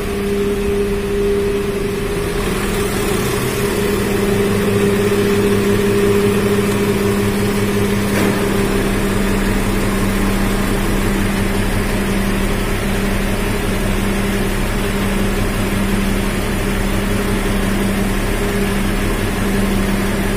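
Nissan Diesel truck engine running with its PTO engaged, driving the hydraulic pump of the MacGregor lifter gear while the outrigger legs extend: a steady hum, with a deeper low note joining about eight seconds in.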